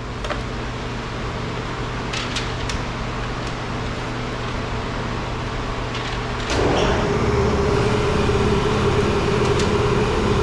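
Steady low background hum with a few light clicks. About six and a half seconds in, a louder machine starts up and keeps running with a steady hum.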